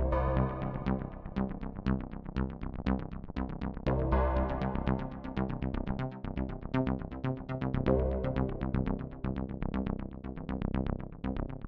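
Electronic background music with a steady fast beat over a sustained bass and synth chords.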